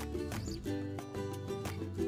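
Instrumental background music with a regular beat and held notes.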